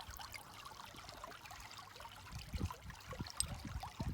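Shallow creek water trickling faintly, with a few soft low knocks scattered through.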